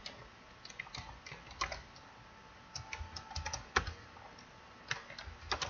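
Typing on a computer keyboard: irregular keystroke clicks in short clusters with brief pauses between, a short title being typed in.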